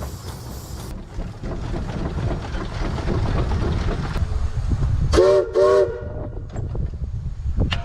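Case 150 hp steam traction engine running, with its steam whistle blown in two short blasts about five seconds in.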